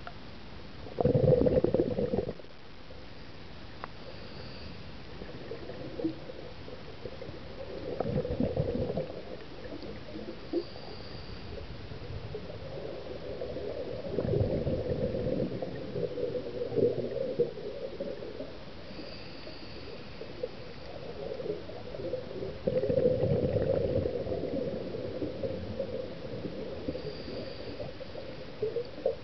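Scuba diver's exhaled bubbles gurgling out of a regulator underwater, in four bursts about six to seven seconds apart in a breathing rhythm, over a steady hiss. The loudest burst comes about a second in.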